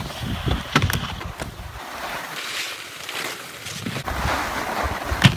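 Wind rushing over a phone microphone and skis scraping over packed snow, with a few sharp knocks. The loudest knock comes near the end.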